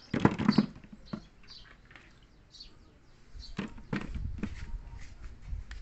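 Hollow plastic toy balls knocking against each other as they are handled in a styrofoam box: a quick cluster of knocks at the start, a single knock about a second in, and a few more knocks past the middle. Small birds chirp in the background.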